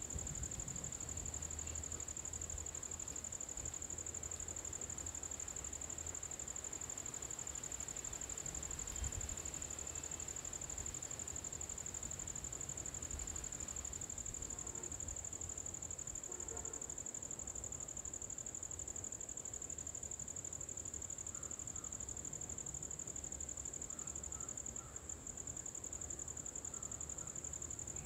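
Steady, high-pitched insect drone, unbroken throughout, over a faint low rumble; a few faint short chirps come in about halfway and again near the end.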